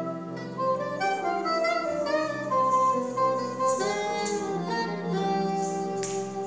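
Live Indian classical-style instrumental music: a sustained reedy wind or reed melody moving in pitch over a steady drone, with a few bright percussive strikes near the end.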